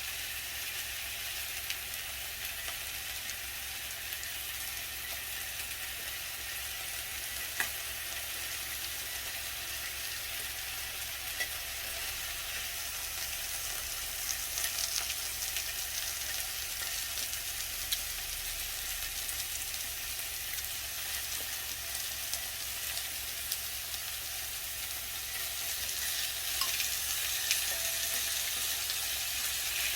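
Beef sizzling and crackling in oil in a hot pan, a steady frying hiss with a few sharp clicks, likely utensils against the pan, getting a little louder near the end.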